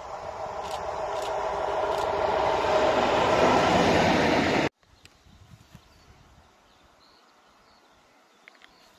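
SM42 diesel shunting locomotive approaching, its engine and running gear growing steadily louder, then cut off abruptly about halfway through, leaving only a faint background.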